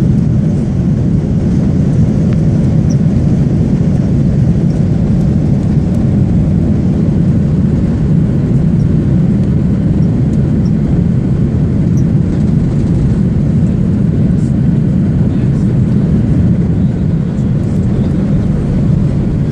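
Airbus A330-200 airliner cabin noise from a window seat: a loud, steady rumble of engines and airflow, even throughout.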